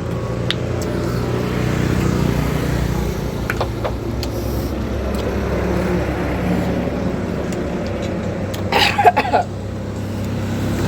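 A motor vehicle's engine running steadily with a low hum, and a brief loud pitched sound about nine seconds in.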